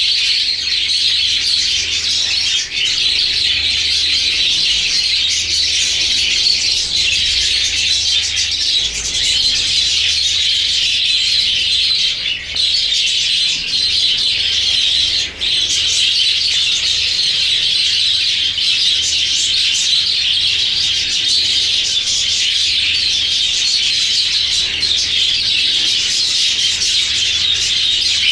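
A flock of budgerigars chattering all at once: a dense, continuous chorus of chirps and warbles.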